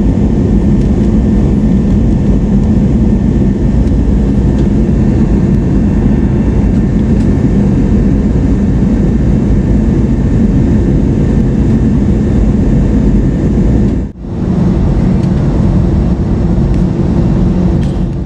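Steady cabin noise of a jet airliner in climb or cruise: a loud, even rush of engines and airflow, heaviest in the low range, with faint steady hums. It drops out briefly about fourteen seconds in.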